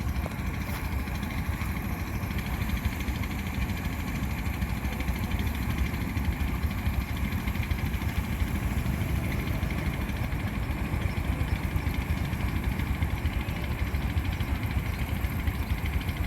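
An engine running steadily, a low, fast-pulsing rumble that does not change, typical of machinery used in rice harvesting.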